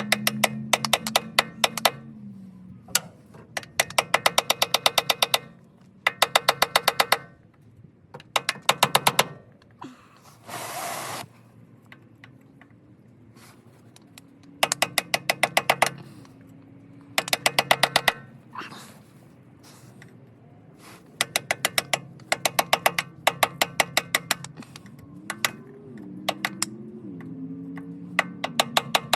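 Rapid light hammer taps on a chisel, about ten strikes a second in repeated bursts of one to two seconds, driving the transmission's extension housing seal out of its bore. A brief scrape comes about ten seconds in.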